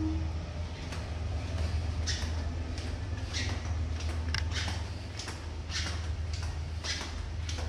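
Footsteps walking along a carpeted hallway, starting about two seconds in: a soft scuffing step roughly every half second to second, over a steady low hum.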